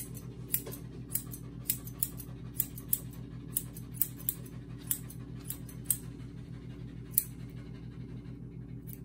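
Curved grooming shears snipping a dog's facial hair: a quick, irregular run of crisp blade clicks, about two a second, pausing about seven seconds in, over a steady low hum.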